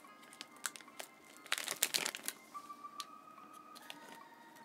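Plastic snack bag of rice crackers crinkling and crackling as it is handled, in short irregular bursts, busiest about one and a half to two seconds in.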